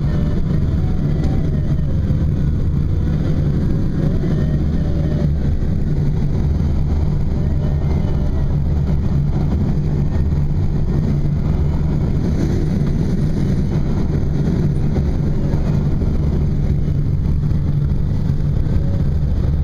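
Steady rush of airflow over a glider's canopy in flight, heard inside the cockpit as an even low rumble.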